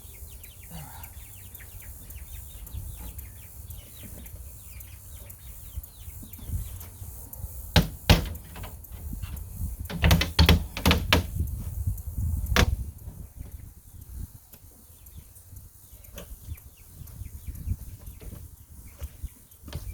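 Knocks and rattles of a chicken run's wooden door and its wire being handled, with a cluster of sharp knocks in the middle as the door is worked open.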